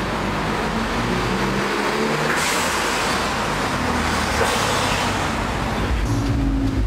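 Cars driving slowly past on a street, engines running and tyres on the road, with one car passing close and louder in the middle. The sound changes to a steadier engine hum near the end.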